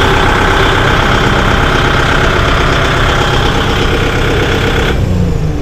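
Kubota MU5502 tractor's four-cylinder diesel engine idling steadily, then switched off about five seconds in, its sound dropping away as the engine runs down.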